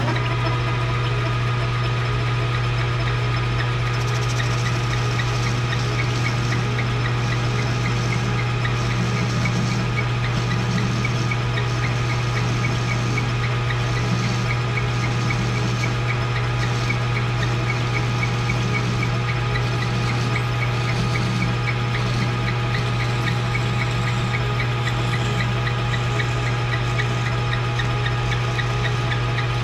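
Metal lathe running steadily, a constant motor hum with a whine and squeal from the drive belt, which wants cleaning or tightening.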